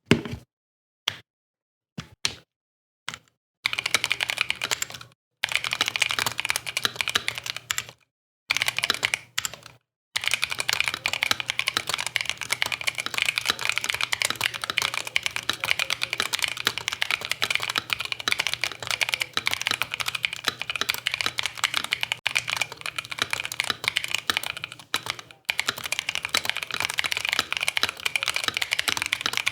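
Typing on a Mountain Everest 60 mechanical keyboard with pre-lubed Mountain switches, lubed Cherry stabilizers and foam and silicone dampening. It starts with a few scattered keystrokes and short pauses, then fast continuous typing from about ten seconds in.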